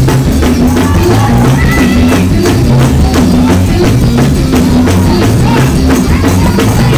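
Loud live gospel praise music with heavy bass and a fast, steady drum beat, the kind played for a church 'shout'.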